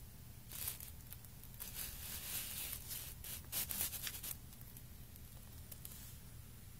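Faint scratchy rustling in a string of short bursts during the first four seconds or so, over a low steady hum.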